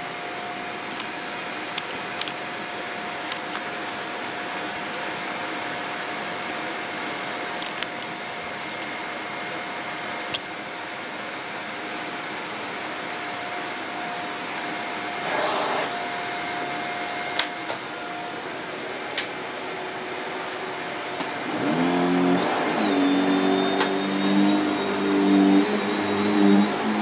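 Shark Powered Lift Away NV681UKT upright vacuum cleaner running steadily with a thin whine and a few light clicks. About twenty-two seconds in, as the canister is lifted off into lift-away mode, it turns louder and takes on several low humming tones.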